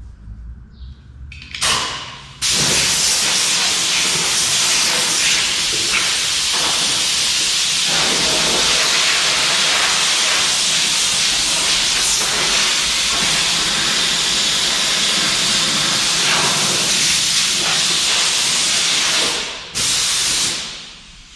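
Compressed-air blow gun blowing dust out of a welder: a short blast, then one long, steady, loud hiss of air that cuts off near the end, followed by a brief final blast.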